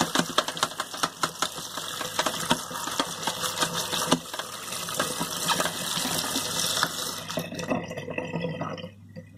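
Kitchen tap running onto chopped leeks in a plastic colander in a stainless steel sink, water splashing over them. The flow tails off and stops about three-quarters of the way through.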